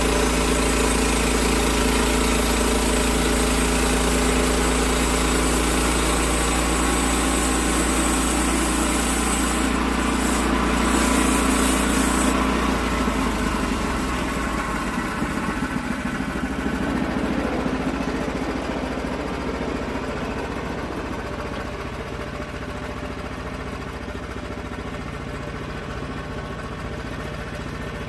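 Portable sawmill's gasoline engine running steadily with a high hiss over it. About halfway through the hiss cuts off and the engine settles lower and gradually quieter.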